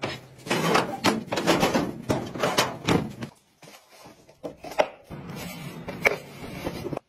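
Clattering and knocking of household objects being handled, dense for about the first three seconds, then sparser, quieter knocks and scrapes.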